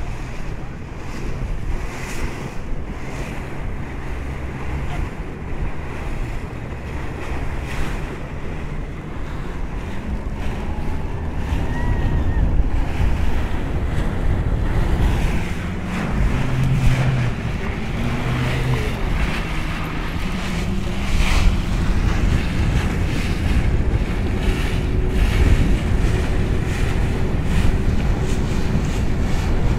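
Wind buffeting the microphone over rushing sea water from a moving motorboat. Underneath, the boat's engine runs, its pitch rising and falling as the boat circles.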